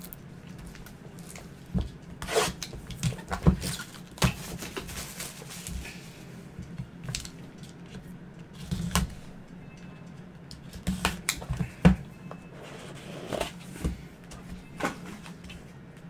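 Gloved hands handling and opening a sealed 2021 Trinity football card box and its clear plastic case. Scattered clicks, taps and brief rustles of cardboard and plastic, with a few sharper knocks, over a steady low hum.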